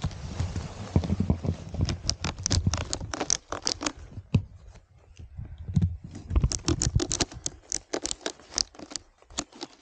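Snowboard binding ratchet straps being cinched: two runs of rapid, sharp clicks, the second starting about six seconds in, over a rustle of handling.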